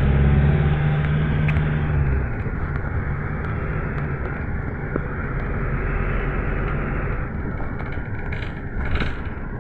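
GAZelle Next route minibus driving along a city street, heard from inside the cabin: engine hum and road rumble. The engine hum is strongest for the first two seconds, then settles into a steady rumble, with a few short knocks or rattles near the end.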